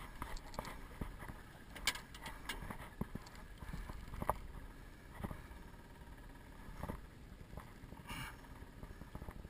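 Light wind and water noise around a small aluminium boat, with scattered irregular knocks and clicks from handling the rod and reel while a hooked lingcod is reeled in.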